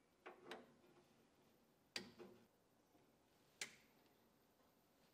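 A handful of faint, sharp clicks in near silence: a hex driver turning the screws that hold the spindle motor of a dental milling machine.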